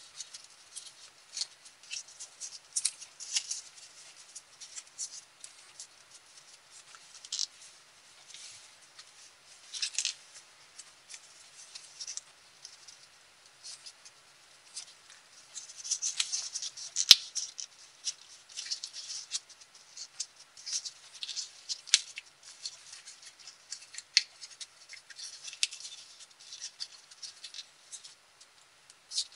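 Colored copy paper crinkling and rustling as fingers fold it and press creases into a small origami model. The crackles come irregularly, with a few sharp clicks, the loudest a little past halfway.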